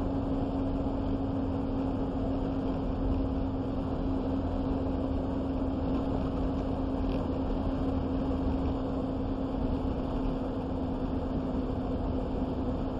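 Steady road and engine noise inside the cab of a moving vehicle, with one constant low hum under it.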